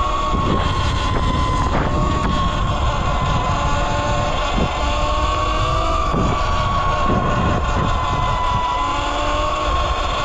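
Electric dirt bike's motor whining with a steady, slightly wavering tone while riding, with wind rushing over the microphone.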